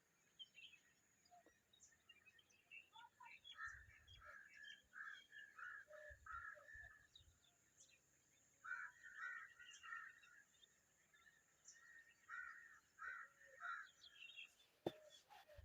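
Faint bird calls: three runs of short, repeated calls, several notes each, with scattered small chirps between.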